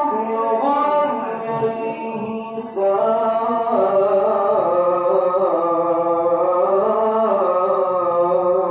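A solo voice in melodic Qur'an recitation (tilawah), holding long ornamented notes that step slowly up and down in pitch, with a short breath about two and a half seconds in.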